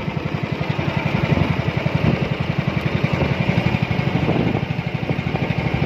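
Small fishing boat's engine running steadily underway, with a fast, even pulse.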